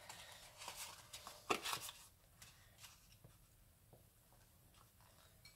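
Handheld paper border punch and patterned cardstock being handled: faint paper rustling, a sharp click of the punch about a second and a half in, then only small ticks as the paper is repositioned.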